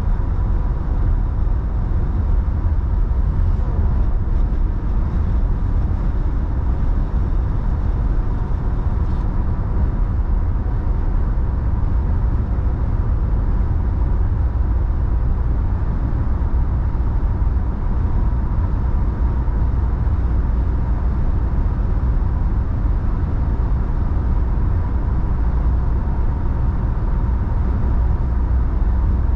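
Steady low road and tyre rumble of a car driving at highway speed, heard from inside the cabin, with a faint steady high whine underneath.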